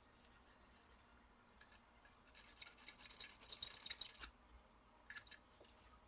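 Flux sizzling and crackling for about two seconds as a soldering iron works solder into a laptop power-jack joint, followed by a couple of faint clicks.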